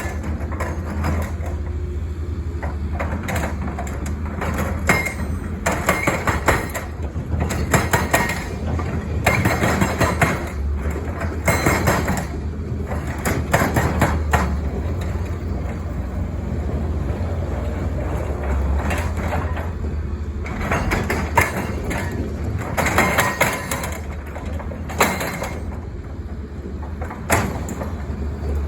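CAT 320 excavator's diesel engine running steadily under load, with its hydraulic breaker hammering in several spells of rapid blows.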